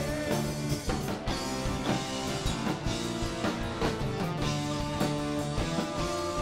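Band music between sung lines: electric guitar, bass and drum kit playing a steady rock beat.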